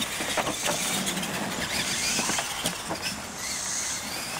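Two radio-controlled monster trucks racing on a dirt track: motors and tyres running over the dirt, with a few sharp knocks early on and again near the end as the trucks come down off the ramps.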